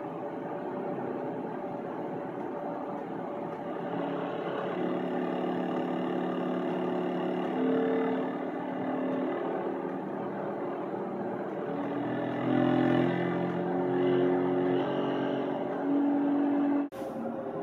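Tone generator playing steady electronic tones through a loudspeaker, stepping to new pitches every few seconds, with two or three tones often sounding together over a steady hiss.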